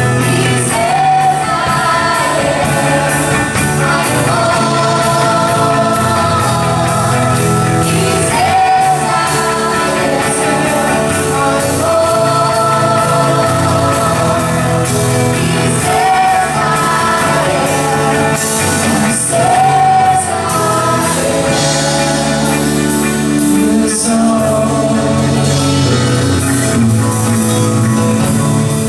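A live worship band plays: a sung melody with held notes over guitars and drums, with a steady cymbal beat.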